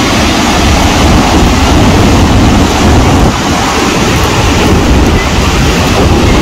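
Steady, heavy rush of Niagara Falls' water plunging into the gorge, with wind buffeting the microphone.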